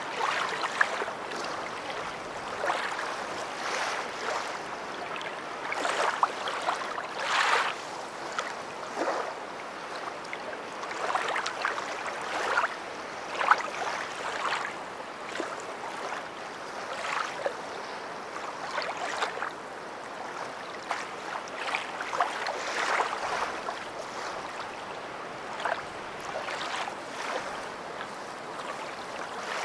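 River water flowing and splashing, a steady rush broken by frequent uneven surges and small splashes.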